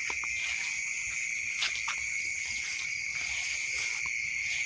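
Night insects, chiefly crickets, calling in a steady unbroken chorus, with a few faint ticks over it.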